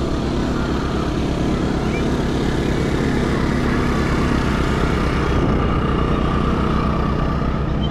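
An engine running steadily close by: a low, even hum with a fast pulse.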